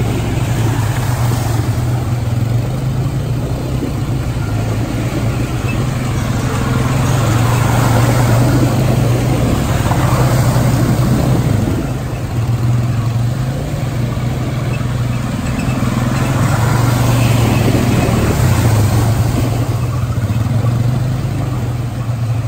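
Quad bike engines running steadily as the ATVs ride through deep muddy water, with water splashing and churning under the wheels.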